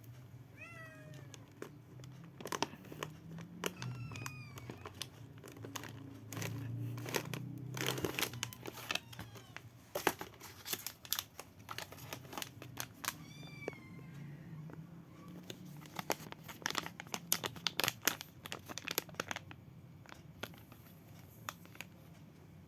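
A cat meowing several times in short calls, with crinkling and crackling of plastic packaging being handled, busiest in the second half.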